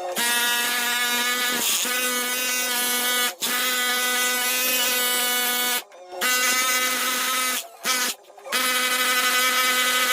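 Electric power tool running under load in runs of a few seconds with three brief stops, a steady whine over a grinding noise, as a recess for a socket back box is chased out of the wall.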